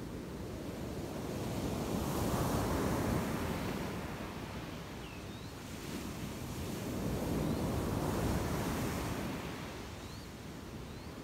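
Ocean surf breaking on a sandy beach: a steady wash of waves that swells and falls back twice, about five seconds apart.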